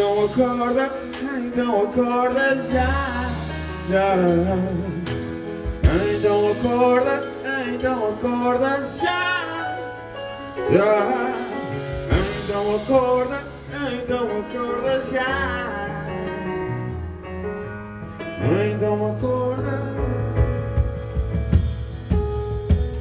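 Live music: a man sings a wavering, drawn-out melodic line into a microphone, phrase after phrase, over a band backing with steady bass notes.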